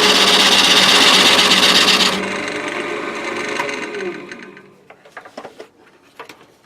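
Wood lathe running while a turning tool cuts the spinning wooden workpiece, the loud cutting noise stopping about two seconds in. The lathe motor then winds down with a falling hum, followed by a few light knocks and clicks.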